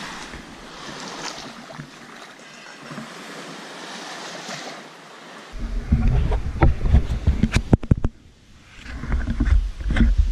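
Small waves lapping on a sandy lake shore, a soft steady wash. About five and a half seconds in this gives way to loud, close rumbling and scattered knocks and clicks from a hand-held camera being handled at close range.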